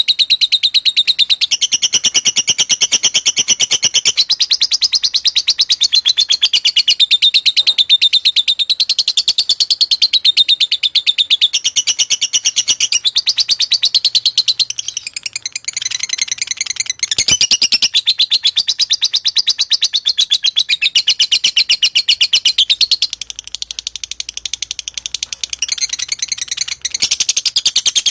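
A lovebird of the 'fighter' kind chirping in a fast, unbroken run of shrill high notes, the long continuous song that Indonesian bird keepers call ngacor. It eases off briefly about halfway through and again near the end.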